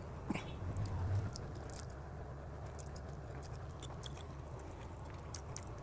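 A person quietly chewing a mouthful of noodles, with faint wet mouth clicks and a short click about a third of a second in.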